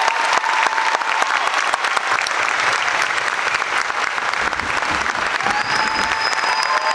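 Audience applauding, a dense steady clapping of many hands. A couple of faint steady tones come in about two-thirds of the way through.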